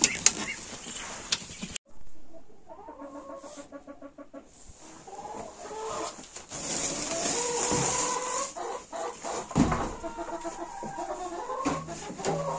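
Domestic hens clucking in a barn, in broken runs of short calls, with rustling and a dull thump about two-thirds of the way through.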